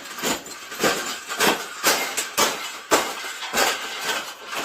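A wire pet cage being struck repeatedly to fold it flat: a steady run of sharp clanking impacts, about two a second, each ringing briefly.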